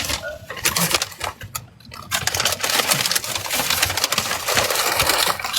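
Dense, rapid crackling and crinkling of a bag of chips handled close to the microphone, growing steady about two seconds in.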